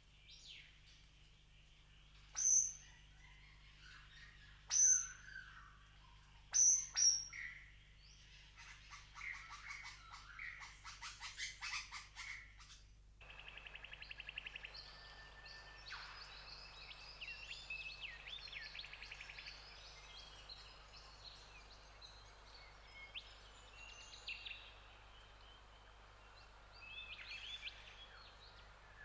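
Wild birds calling: four loud, sharp calls in the first eight seconds, then fast trills, and after an abrupt change about 13 seconds in, a chorus of many chirps and trills over a steady hiss.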